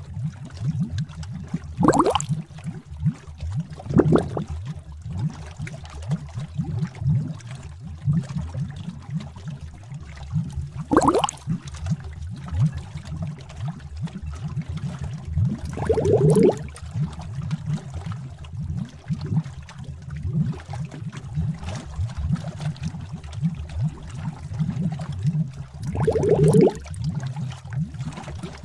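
Bubbling-cauldron sound effect: thick liquid bubbling with a steady run of low pops, and every few seconds a louder glugging bloop that rises in pitch.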